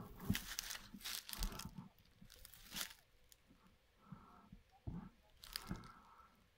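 Footsteps crunching through dry grass and fallen leaves, irregular crackles that come thick in the first three seconds and thin out after.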